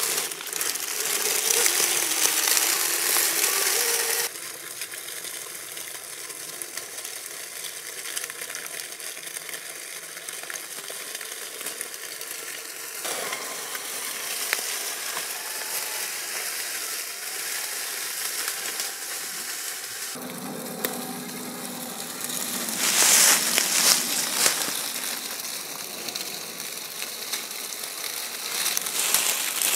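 Traxxas TRX-4 G500 RC crawler on RC4WD Mickey Thompson Baja MTZ tyres driving over dry leaf litter and twigs, the tyres crunching and crackling through the leaves. The crackling is loudest about 23 seconds in.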